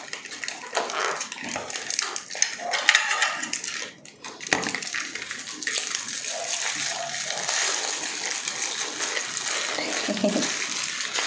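Crinkling of a paper food wrapper being opened and crispy fried chicken being torn apart by hand: a dense crackle and rustle with scattered clicks that turns into a steady crackle about halfway through.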